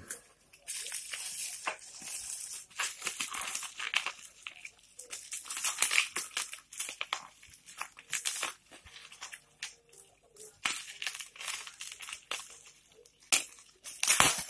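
Bubble wrap and plastic packaging crinkling and rustling in irregular bursts as hands handle a bubble-wrapped bundle of metal frame bars.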